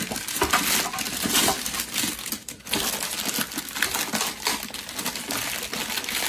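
Clear plastic packaging bag crinkling and rustling as it is handled and pulled open by hand, with a short lull about two and a half seconds in.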